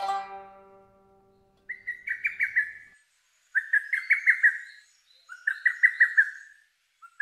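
A shamisen's last plucked note dies away, then a lesser cuckoo (hototogisu) calls three times, each call a quick run of sharp repeated notes lasting about a second, with a fourth call starting at the end.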